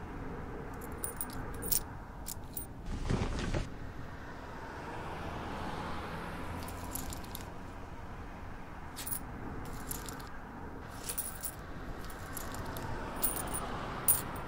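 Light metallic jingling and clinking in scattered short clusters, with a louder burst about three seconds in, over a steady low background hum.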